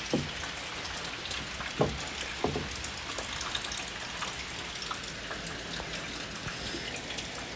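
Light drizzle falling, a steady hiss of rain dotted with small drips and patters. A few soft knocks stand out near the start and about two seconds in.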